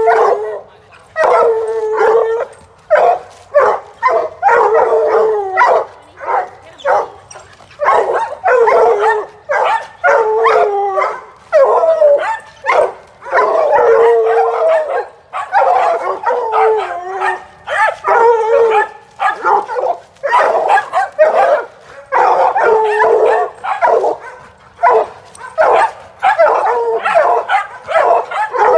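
A pack of hounds baying and barking over one another without a break, a mix of long drawn-out bawls and short chop barks: the baying of dogs that have treed their quarry.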